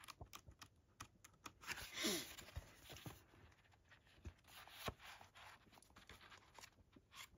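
Pages of a thick book being turned and handled: quiet paper rustles and light ticks, with one louder brushing swish about two seconds in.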